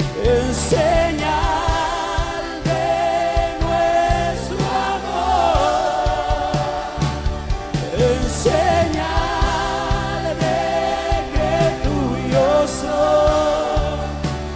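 Spanish-language Christian worship song: voices holding long, wavering sung notes over a band with a steady bass line.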